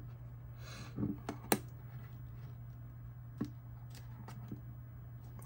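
Scattered light plastic clicks and handling noises from a small thermal label printer as a label roll is put in and its lid closed, over a steady low hum. The sharpest click comes about a second and a half in, with a few fainter ones later.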